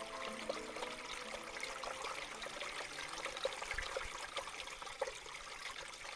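Mountain stream rushing and splashing over rocks, a steady wash of water dotted with small splashes.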